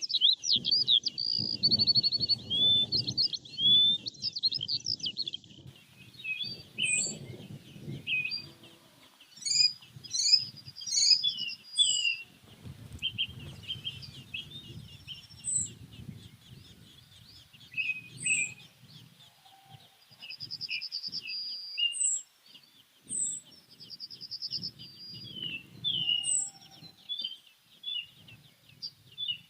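Several small birds chirping, whistling and trilling in quick, high calls, with a low rumble coming and going underneath.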